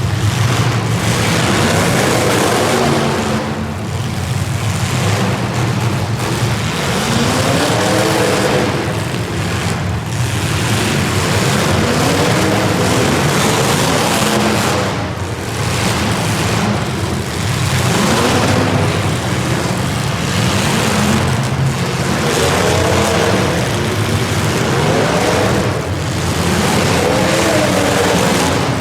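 Engines of motor vehicles racing, revving up and down so that the pitch rises and falls again and again, the loudness swelling and dipping every few seconds.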